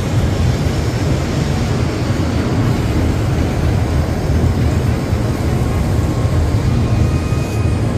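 Shinkansen bullet train running past the platform: a steady low rumble from its wheels and running gear with a rush of air noise over it.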